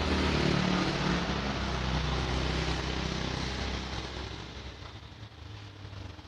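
A vehicle engine running with a steady low hum, growing fainter over the last two seconds or so.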